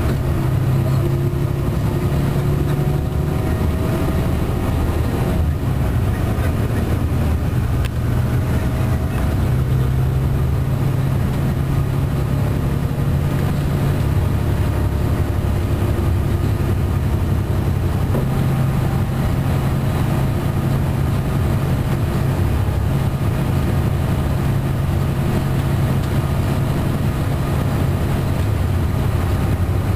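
Cummins ISM diesel engine of an MCI D4500CT coach running steadily at highway cruising speed, heard from inside the passenger cabin as a constant low drone mixed with road noise.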